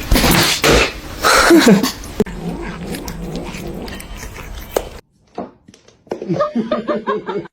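Pet animal vocalising, loudest in the first two seconds. The sound cuts off abruptly about five seconds in, and a different clip with pitched animal sounds starts.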